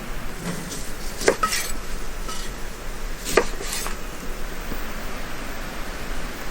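Two sharp clinks about two seconds apart, like metal cookware or utensils knocking together, over a steady background hiss.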